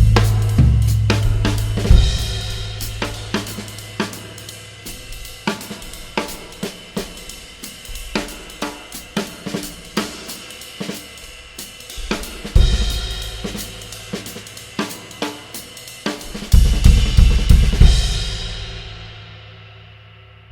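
Drum kit played with Pergamon raw Turkish cymbals: a steady, even cymbal pattern over kick and snare, with loud crash accents at the start, about two seconds in and a little past the middle. A flurry of heavy hits near the end gives way to a crash ringing out and dying away.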